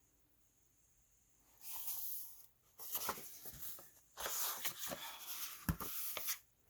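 Paper pages of a picture book rustling and being turned, in three stretches of crinkling with a soft thump near the end.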